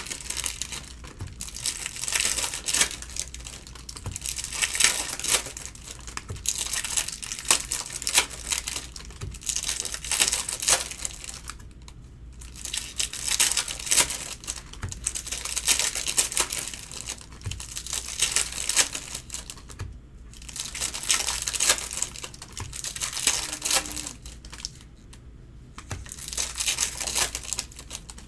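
Foil wrappers of Bowman Chrome hobby packs being torn open and crinkled by hand, in spells of crinkling with short pauses between.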